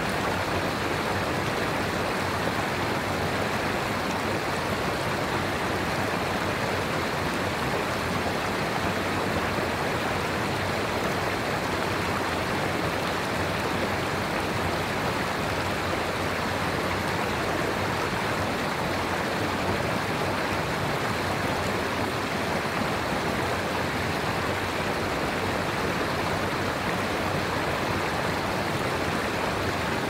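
River rapids: a steady, even rush of water.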